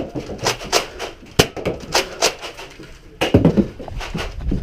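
Nerf blasters firing foam darts during a fast exchange: a string of sharp, irregular clacks and thwacks.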